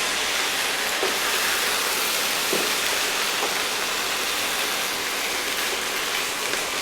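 Minced pork, teriyaki sauce and scrambled eggs sizzling in a hot pan as they are stirred: a steady frying hiss, with a few faint knocks of the stirring utensil.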